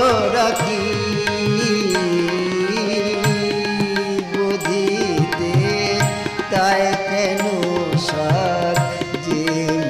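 Instrumental interlude of Indian classical-style music: a harmonium holds steady notes while a sitar is plucked, with notes that slide and bend, and a bowed string instrument plays along.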